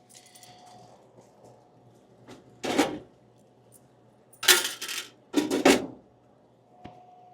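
Coins clinking and rattling in three short bursts, the second and third close together.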